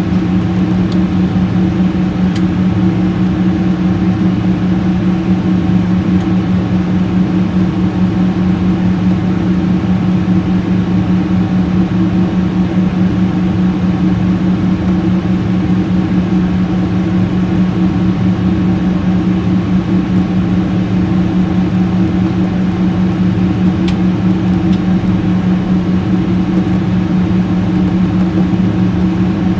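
Jet airliner cabin noise at a window seat over the wing engine: a loud, steady drone of engine and airflow with a constant low hum.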